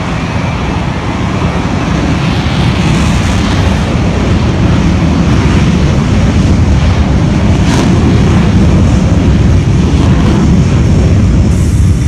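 Jet noise from Blue Angels F/A-18 Hornet jets, loud and steady, building over the first few seconds and then holding.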